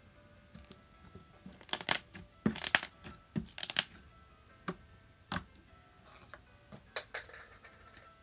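Slime being squished and poked by hand, giving sharp crackling clicks in clusters, loudest a couple of seconds in, over soft background music.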